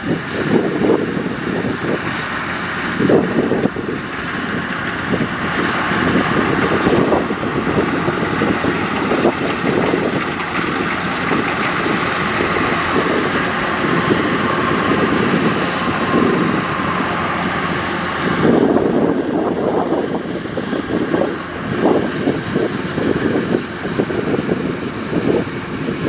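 Kubota DC-105X combine harvester running under load while cutting rice: a steady drone of diesel engine and threshing machinery, with wind buffeting the microphone. About two thirds of the way through, the higher part of the machine noise drops away.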